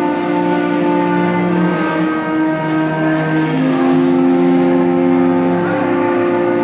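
Wind ensemble with cello and double bass playing slow, sustained chords, the notes held for a second or two and moving to new chords about two, three and a half, and five and a half seconds in.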